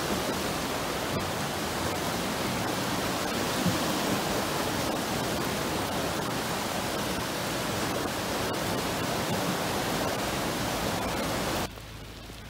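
Fast-flowing floodwater of the overflowing Kyll river rushing past, a steady, full rush of water. Shortly before the end it cuts suddenly to a much quieter hiss with a low hum.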